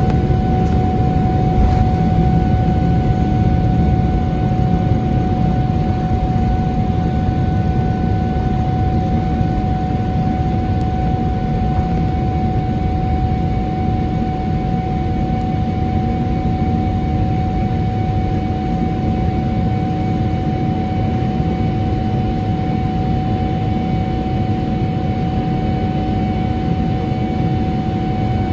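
Cabin noise of a Boeing 777-300ER climbing out after takeoff: its GE90-115B engines at high thrust make a steady roar with a clear, steady whine, growing slightly quieter toward the end.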